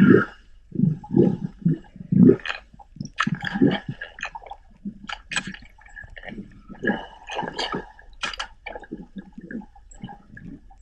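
Underwater sound picked up by a GoPro lowered into the sea: a run of irregular gurgling and knocking bursts of water around the camera, with a faint steady tone behind them.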